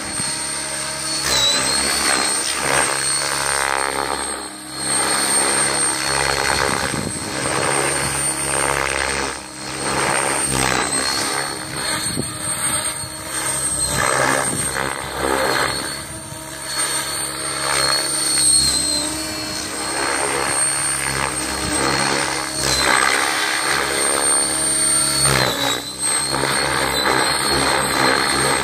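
Electric RC helicopter (TSA 700-e on an Align 800MX motor, about 2040 rpm head speed, 690 mm blades) in flight: a steady high motor-and-gear whine over the rotor blades' buzz. Loudness swells and drops every few seconds as it passes and manoeuvres, and the whine dips briefly in pitch twice, about a second in and near the end.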